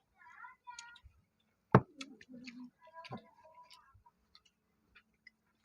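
Eating balut: scattered small clicks and taps of eggshell and chewing, with one sharper tap a little under two seconds in.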